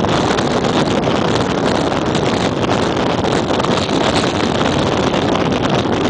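Aerial cable car descending: a steady, loud rushing noise with a low rumble, and wind on the microphone.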